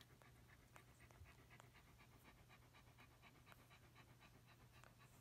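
Faint, fast, even panting of a Pembroke Welsh Corgi dam during whelping, over a low steady hum.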